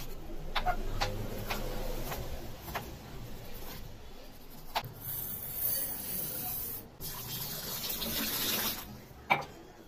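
A knife slicing a tomato on a wooden chopping board, its blade knocking on the board a few separate times. About halfway through, a stream of water pours into a bowl of raw rice: a steady splashing hiss that stops shortly before the end.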